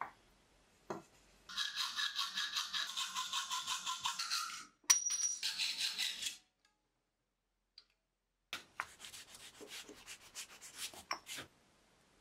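Hacksaw cutting thin sheet metal clamped in a vise: quick, even back-and-forth strokes with a ringing metallic edge, broken once by a sharp click. After a couple of seconds of silence comes another run of rapid scraping strokes.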